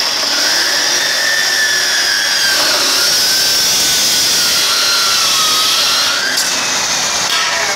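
Abrasive chop saw cutting through metal stock: a steady grinding noise with a high whine that wavers in pitch as the disc bites, easing off a little about six seconds in.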